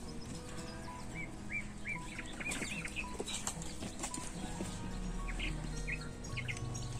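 Birds chirping in short, repeated arched calls, over background music with sustained low notes.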